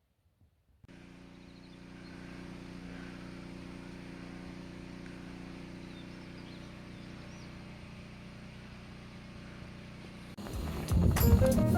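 Steady low hum of a vehicle running, with a few faint bird chirps over it. About ten seconds in, louder music with guitar and drums comes in over it.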